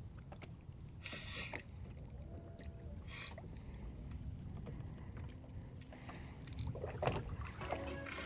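Quiet handling noise of a bass angler fighting a fish from a boat: scattered small clicks and rustles of rod and reel, with two short swishes about one and three seconds in.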